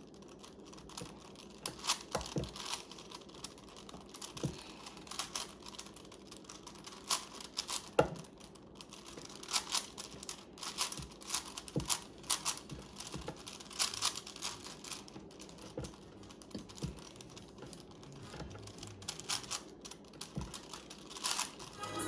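Plastic Rubik's cube being turned by hand: the layers click and clack as they rotate, in irregular runs of quick clicks separated by short pauses.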